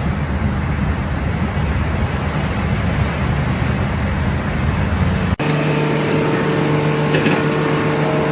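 Steady engine or machinery noise with a low hum. About five seconds in it cuts abruptly to a different steady engine hum with a clearer pitch.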